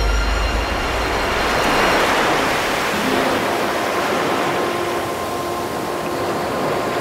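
Steady rushing noise of sea surf, with faint steady tones coming in about four seconds in.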